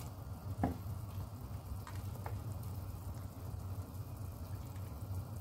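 Pot of water at a steady rolling boil with diced pork belly in it, bubbling continuously, with a few light clicks.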